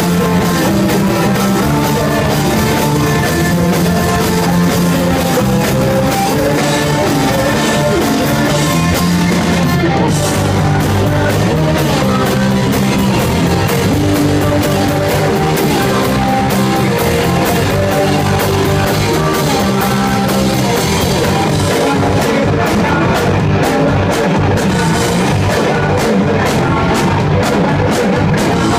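Punk rock band playing a song live on stage: drum kit, electric guitar and bass guitar at a steady loud level, with sung vocals.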